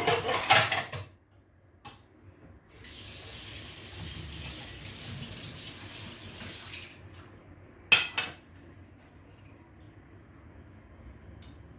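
Kitchen tap running into a sink for about four seconds, with clattering of dishes in the first second and a sharp clink about eight seconds in.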